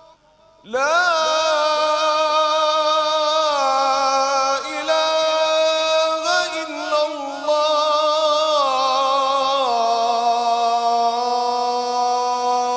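Adhan, the Islamic call to prayer for Maghrib, chanted by a male muezzin into a microphone. After a short pause his voice comes in about a second in and holds long, drawn-out notes, its pitch stepping down a few times.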